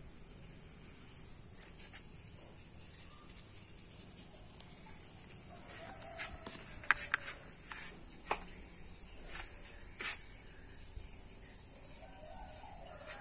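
A steady, high-pitched chorus of insects droning without a break, with a few sharp clicks and ticks between about six and ten seconds in.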